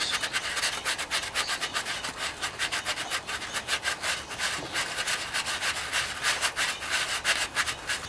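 Sanding sponge scrubbed in rapid, rasping strokes, several a second, on the metal fuel pump mounting pad of a Kohler Command 14 engine's crankcase. The pad is being taken down to bare metal so the new fuel pump's O-ring will seal.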